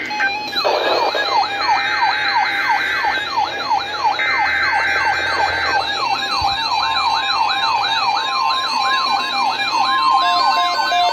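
Several electronic siren tones layered together: a fast yelp sweeping up and down about three times a second, over a steady tone and a higher warbling tone. A multi-tone beep cuts in and out twice in the first half, each time for about a second and a half.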